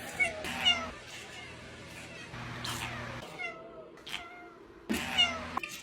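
A cat meowing repeatedly: about six short meows spread over a few seconds, most falling in pitch.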